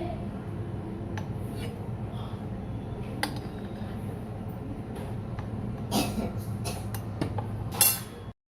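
Metal kitchen utensils clinking and tapping over a steady low hum: a few scattered clinks, then a cluster of louder ones near the end before the sound cuts off.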